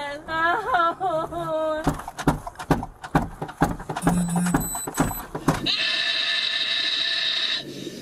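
A woman crying out in pain, her voice wavering up and down for about two seconds. Then a run of knocks and handling clicks, and a steady noise for the last two seconds that cuts off suddenly.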